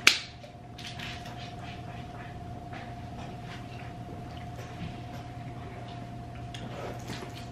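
Hard seltzer cans shotgunned: a sharp crack of a can opening right at the start, then faint gulping and small can-handling clicks, over a faint steady hum.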